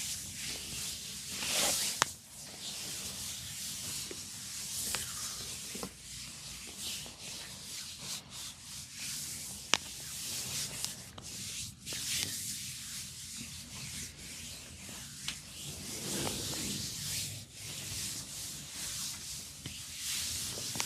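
Hands rubbing and massaging a scalp through the hair close to the microphone: a steady hissing rub that swells and fades, with two sharp clicks, one about two seconds in and one near the middle.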